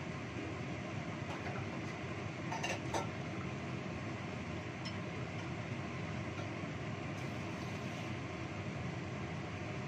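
Wok of coconut-milk lodeh simmering over a gas burner: a steady rushing noise. A few light clinks come a little under three seconds in.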